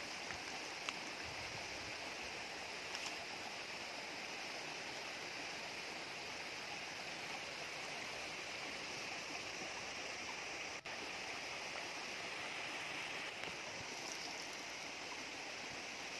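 Shallow rocky stream running over stones: a steady, even rush of water, with a momentary dropout about two-thirds of the way through.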